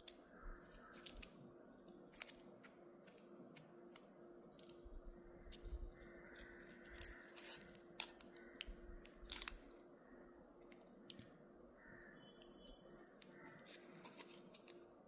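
Faint handling sounds as a foil-wrapped chocolate praline is unwrapped and opened: scattered small clicks and crinkles, busiest in the middle.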